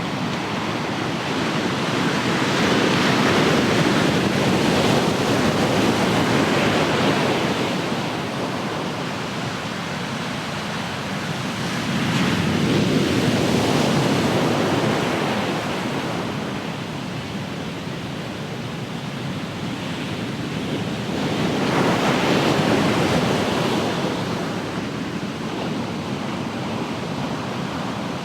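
Ocean surf: waves breaking in a steady rush, swelling three times about nine seconds apart.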